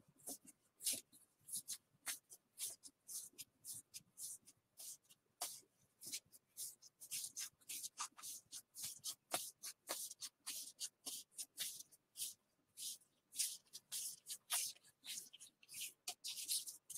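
Topps Gypsy Queen baseball cards being thumbed through one at a time, each card edge giving a short, dry papery flick, about four a second.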